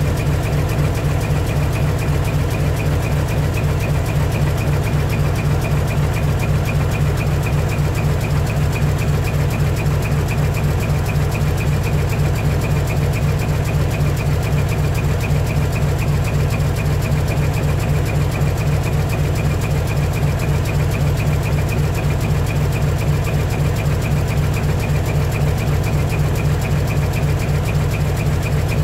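Heavy diesel truck engine idling steadily, its exhaust pulsing evenly with no revving.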